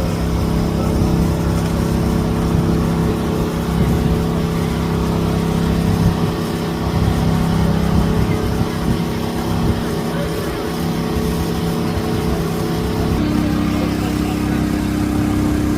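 Steady engine hum of nearby road traffic, a low drone that changes pitch about thirteen seconds in, with crowd voices underneath.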